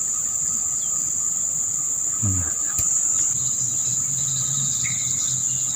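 Insect chorus: a steady, unbroken high-pitched drone, with a single sharp click about three seconds in.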